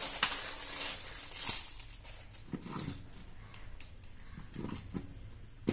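A plastic bag of small metal nuts and fittings being crinkled open and shaken, with sharp clicks of the parts knocking together. About two and a half seconds in and again about two seconds later come two short, low sounds with some pitch to them.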